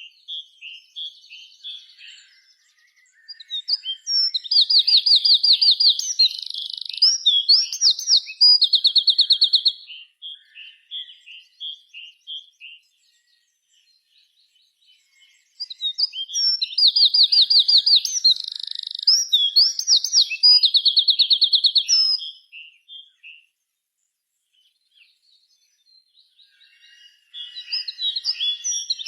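Bird song: long phrases of rapid, high chirps and trills, each lasting about six seconds and starting again roughly every twelve seconds, with quiet pauses between.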